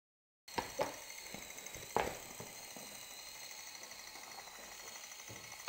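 Silent for the first half second, then a small wheeled robot's gear motors and servos running: a faint steady high whine with a few sharp clicks and knocks, the loudest about two seconds in.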